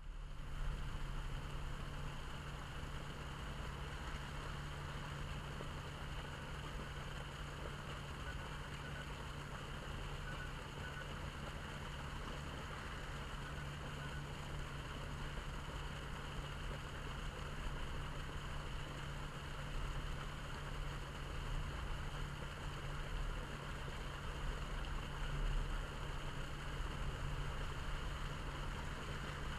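Water gushing steadily out of the open top of a white PVC riser and splashing onto muddy ground as a main line is flushed, with a steady low rumble.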